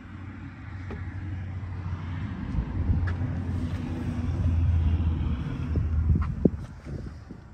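The Yamaha QuieTech EFI golf cart's single-cylinder gas engine running as a steady low hum that builds toward the middle and drops away near the end, with a few light clicks.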